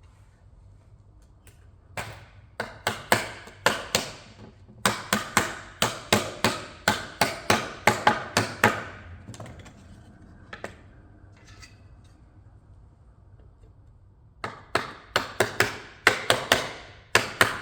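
Rubber mallet knocking phenolic plywood shelf panels together onto their tenons: a quick run of sharp knocks, about three a second, then a pause of several seconds and a second run near the end.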